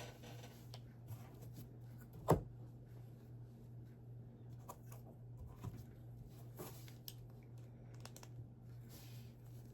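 Faint handling noises from Lego building: light ticks and paper rustles from the pieces and the instruction booklet, with one sharp click a little over two seconds in, over a low steady hum.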